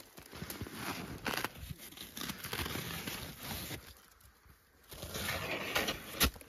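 Snow crunching and crackling in irregular bursts, with a sharp click near the end.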